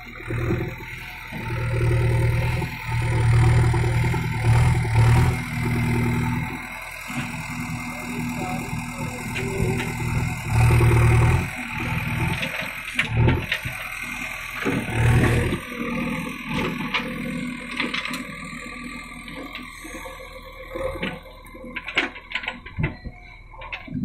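JCB backhoe loader's diesel engine running and revving up and dropping back several times as its hydraulics work the stabiliser leg and backhoe arm. Near the end come scattered sharp clicks and knocks of the bucket digging into stony soil.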